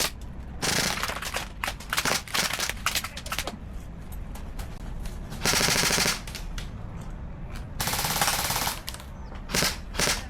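Airsoft guns firing: scattered single shots and short strings, then two full-auto bursts of rapid, even shots about five and a half and eight seconds in, with a few more shots near the end.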